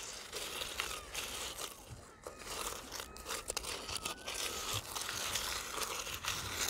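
Pinpointer probe scraping and raking through coarse, gravelly beach sand and small stones, giving a continuous gritty crunching.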